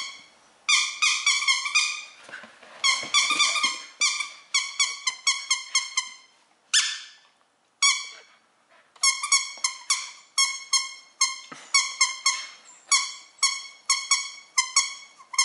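Squeaky plush toy being chewed by a Siberian Husky, squeaking over and over in rapid runs of several squeaks a second with short pauses between runs, every squeak at the same pitch. One longer squeak comes about two-thirds of the way through the first half.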